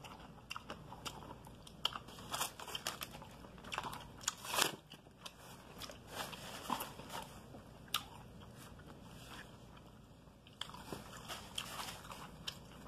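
Close-miked chewing and crunching of crispy fried chicken breading, in irregular crunches, with one loud crunch about a third of the way through and a quieter spell near the end.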